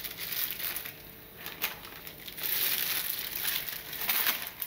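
Parchment cooking sheet crinkling and rustling as hands fold it over food in a small bamboo steamer. The crinkling is irregular, sparser in the first half and busier from about halfway through.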